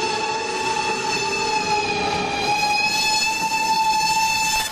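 A passing train sounds one long, steady blast of its warning horn or whistle, several tones together, over the running noise of the train.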